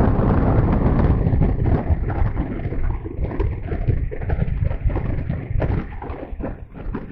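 Wind buffeting the microphone of a camera on a jet ski running at about 80 km/h, a dense rumbling rush that eases a little after the first second. From about three seconds in, irregular thumps break through the rush.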